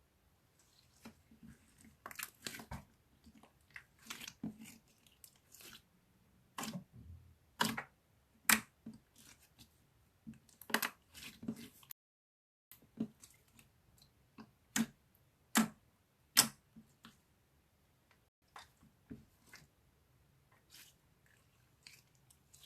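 Irregular sharp clicks and short rustling or crinkling handling noises close to the microphone, with the sound cutting out completely for a moment about halfway through.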